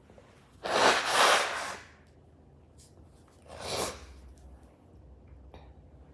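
A person blowing their nose: a long, noisy blow of about a second with two surges, then a shorter blow about three seconds in.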